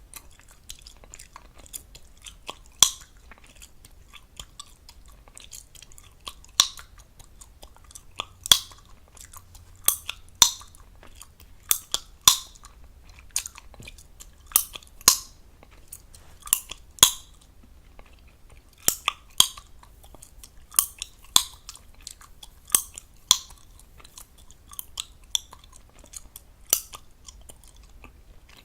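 Gum chewed fast right at the microphone, with a steady patter of wet smacking clicks. Loud, sharp gum pops come every second or two, often in pairs about half a second apart.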